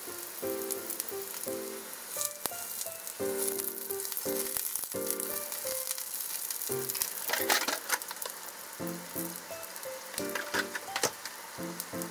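Eggplant slices sizzling in oil in a frying pan, with sharper crackles a few times past the middle and near the end as they are turned over. Background music plays over it.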